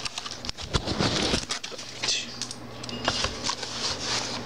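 A mechanical keyboard being handled and set down during unboxing: scattered clicks and knocks with bursts of rustling.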